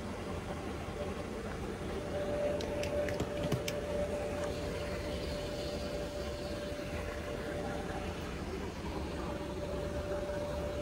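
Steady background hum inside a Boeing 737 cockpit on the ground, a even hiss and rumble with a steady tone running through it, the sound of the cabin air and equipment fans. A few light clicks come about two and a half to four seconds in.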